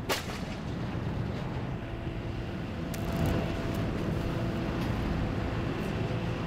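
Steady low rumble of a large passenger ferry's engines as it berths. A single sharp knock right at the start, and a faint steady hum joins about two seconds in.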